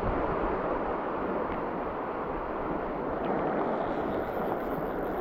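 Steady rushing noise of heavy rain falling on a flowing river.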